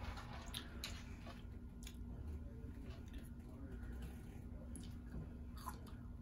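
Soft chewing of French fries, with a few faint clicks and a low steady hum underneath.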